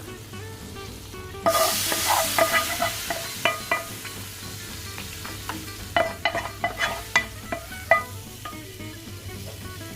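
Hot coconut-oil tempering with fried dried red chillies, curry leaves and coconut pieces poured into a curry: a loud sizzle starts about a second and a half in and dies away. Then a spoon scrapes and clinks against the pan.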